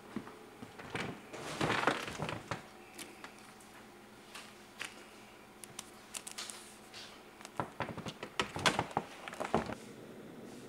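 A heavy volume of the Oxford English Dictionary being handled on its shelf, pulled out and opened: knocks of the book against the shelf and paper rustling, in two bursts, about two seconds in and again around eight seconds in.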